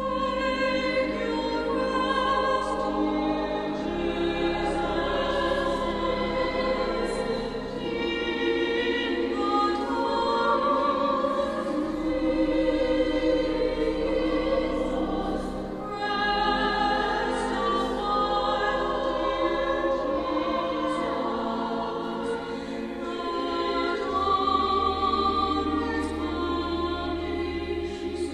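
Church choir singing a slow sacred piece in several parts, coming in at the start over sustained low bass notes that change every few seconds.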